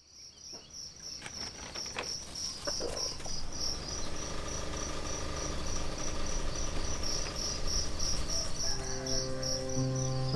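Insects chirping steadily in an evening chorus, a high pulsing trill about three chirps a second, over a low background hum; soft music comes in near the end.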